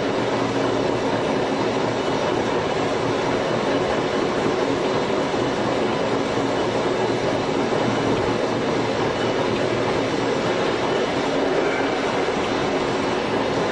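Tobu 5700 series electric train with nose-suspended traction motors running at a steady speed, its motor and gear hum mixed with the rumble of wheels on rail.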